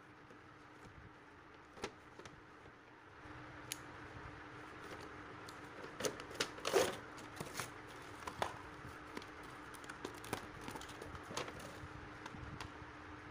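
A cardboard-and-plastic toy box being handled and opened: scattered taps and clicks, with a busier patch of cardboard rustling and scraping about six to seven seconds in. A faint steady hum runs underneath from about three seconds in.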